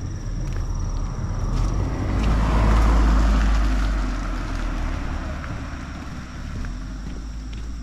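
A car driving past: its tyre and engine noise swells to a peak about three seconds in, then fades away.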